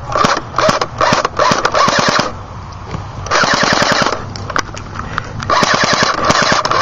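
Airsoft guns firing full-auto in rapid bursts of clicking shots: a run of short bursts in the first two seconds, another burst a little past the middle, and two more near the end.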